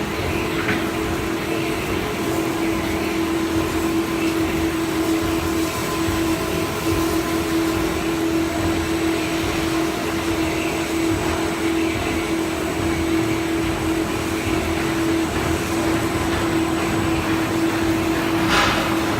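Industrial coating lamination machine running, a steady mechanical hum with one constant tone, and a brief click near the end.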